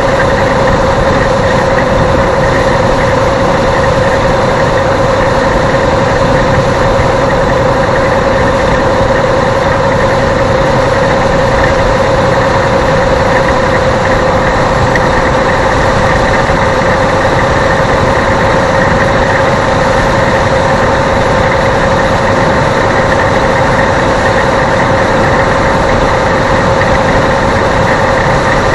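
Steady road and engine noise of a car cruising on a highway, heard from inside the car, with a constant mid-pitched hum over it.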